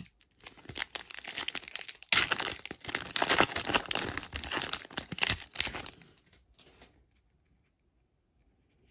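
Foil trading-card pack wrapper being torn open and crinkled by hand: a dense crackling that is loudest about two to four seconds in and stops about six seconds in.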